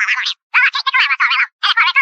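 Cartoon animal sound effect: a rapid rattling call made of quick pulses, repeated in three bursts.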